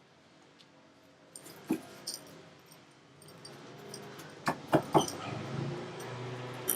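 Metal parts and tools clinking and knocking, a few separate sharp strikes, while a front wheel hub assembly is handled and fitted. A low drone comes in during the last couple of seconds.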